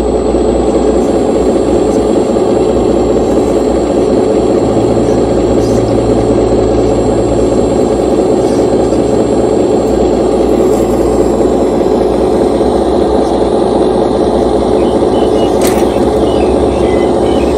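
Radio-controlled hydraulic CAT long-reach excavator running steadily as it works its boom, a dense, even mechanical drone with a low hum beneath. There is a single sharp click near the end.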